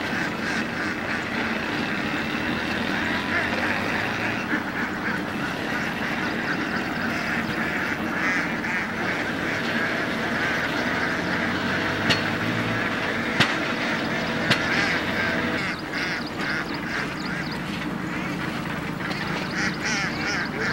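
A large flock of domestic Indian Runner ducks quacking, with many calls overlapping into a continuous chatter. A few sharp clicks stand out around the middle.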